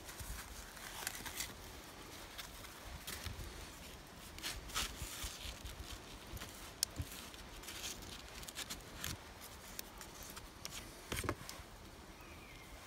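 A wooden butter knife scraping soft spread onto flatbread, in a series of brief, faint scrapes with a few light clicks as the bread and knife are handled.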